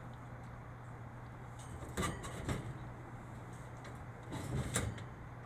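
A metal wire animal crate holding a young black bear clanks and rattles in two short bursts, about two seconds in and again near the end, over a steady low hum.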